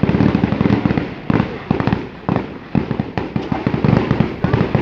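Fireworks display going off: many quick bangs and pops in close succession, thinning out briefly about halfway through, then coming thick again.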